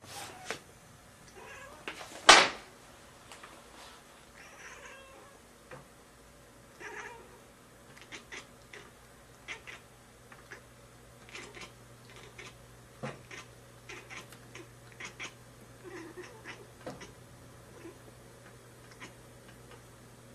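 Domestic cat meowing a few times, with scattered light clicks and taps. One sharp knock about two seconds in is the loudest sound.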